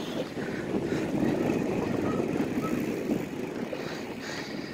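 Rushing noise of riding a bicycle on pavement: tyres rolling on the road and air rushing past the phone's microphone. It swells in the middle and eases off near the end.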